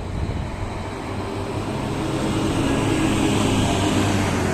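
Large bus's diesel engine running, growing louder from about two seconds in.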